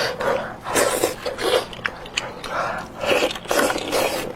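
Close-miked eating: biting into and chewing spicy goat-head meat, with wet smacks and sharp clicks coming irregularly about every half second.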